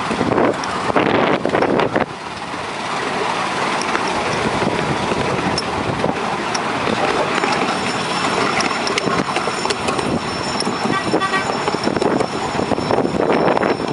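A ride-on miniature railway train running along its track, a steady rumble of wheels on rail with scattered clicks.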